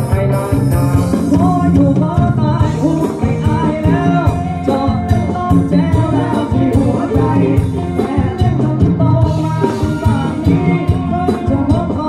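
Thai ramwong dance song played by a live band: a singer over a steady drum-kit beat, with guitar and other instruments.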